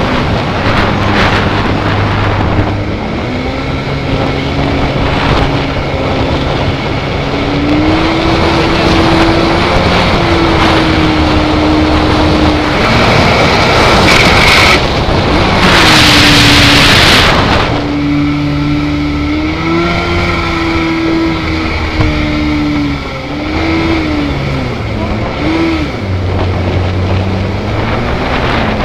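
Jet boat engine driving a Hamilton water jet, running hard with its pitch rising and falling again and again as the throttle is worked up shallow river water, over a steady rush of water and wind. Around the middle a loud rushing hiss swells for a few seconds.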